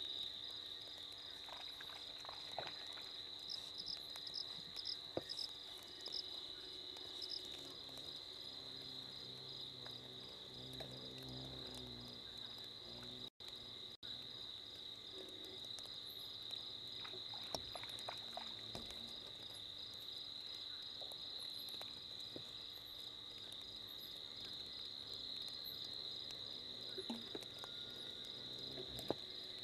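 Night insects chirring in one steady, continuous high trill, with scattered faint clicks and rustles.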